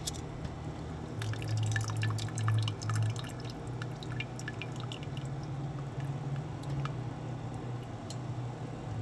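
Water dripping and trickling back into a pot of hot water as a cooked spiny lobster tail is lifted out with metal tongs. The small drips and clicks come thickest over the first few seconds, then thin out, over a steady low hum.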